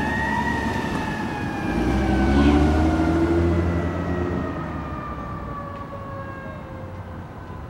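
Emergency vehicle siren on a wail, rising at the start and then falling slowly and fading, over a heavy vehicle's engine rumble that is loudest about two and a half seconds in.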